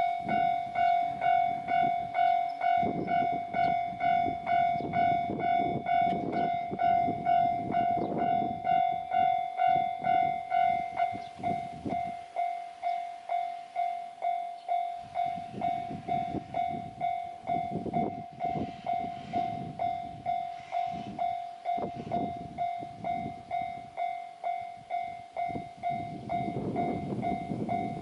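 Japanese railway level-crossing warning bell ringing its repeated 'kan-kan' at about two strikes a second. A low rumble rises and falls underneath it, likely a train passing.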